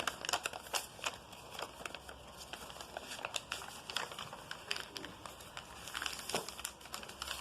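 Sheet of paper being handled and folded: scattered soft crinkles and rustles, with sharp clicks as creases are pressed.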